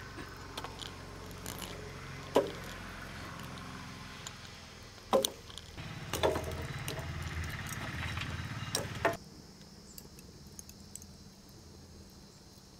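Lumps of charcoal tipped into a burning metal brazier: a few sharp clattering knocks, the loudest about two and five seconds in, over a steady low rumble.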